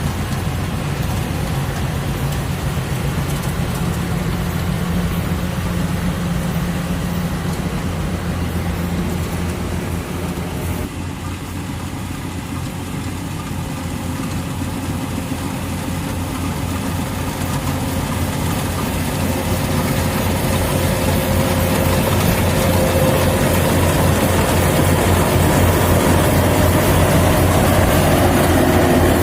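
Yanmar AW70 combine harvester's diesel engine running steadily; it dips slightly about a third of the way in, then grows gradually louder.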